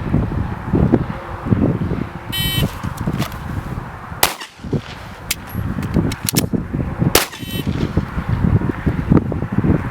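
Glock 17 Gen 2 9mm pistol firing a string of shots, the two loudest about four and seven seconds in, with wind rumbling on the microphone.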